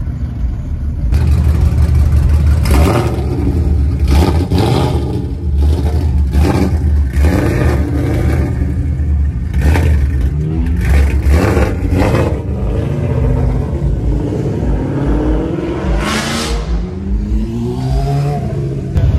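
Ford Mustang's engine revving hard in repeated bursts as the car pulls out. Near the end a sport motorcycle accelerates past, its engine rising in pitch.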